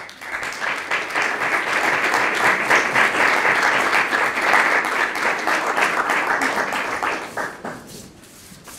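Audience applauding. The clapping starts at once, holds steady for about seven seconds, then dies away near the end.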